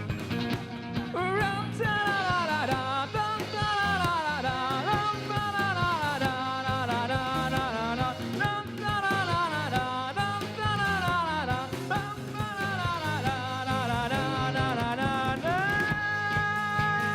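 Rock band music: a sliding, bending lead melody over a steady band backing, ending on a long held note near the end.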